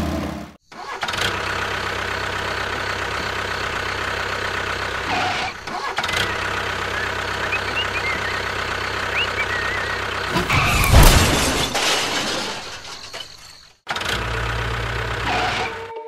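Tractor engine running steadily, with two brief dropouts and a louder low surge about eleven seconds in.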